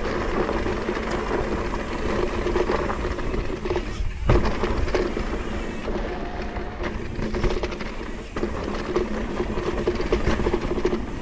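Mountain bike riding down a rough dirt trail: tyres rolling over dirt and rock, with continuous rattling and clattering from the bike.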